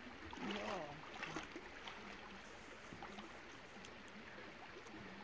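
Faint running water of a shallow, rocky stream, with quiet sloshing from bare feet wading through it.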